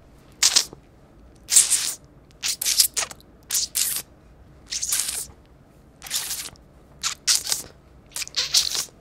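A string of short hissing, scratchy noises, about nine in all, irregularly spaced with quiet gaps between them.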